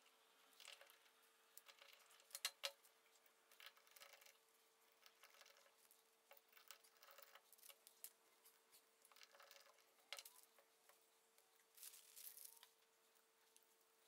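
Faint clicks, taps and rustles of small bolts and brass washers being handled and fitted into the holes of an aluminium cube, with a sharp pair of clicks about two and a half seconds in. A faint steady hum runs underneath.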